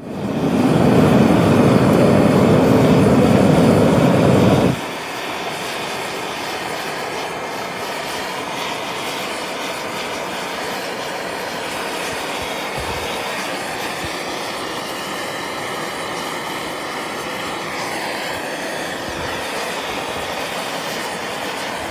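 Gas torch flame burning steadily, melting silver in a graphite crucible. It is louder for about the first five seconds, then drops to a lower steady level.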